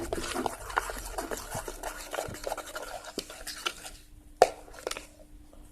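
Homemade glue slime being stirred and squished as a little more borax water is worked in: a dense run of small wet, sticky clicks for about four seconds, thinning out, then a single sharp knock.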